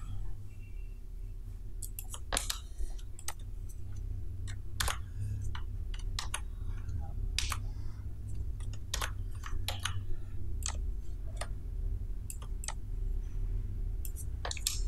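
Computer mouse clicks and keyboard key presses: about twenty short, sharp clicks at irregular intervals over a low steady hum.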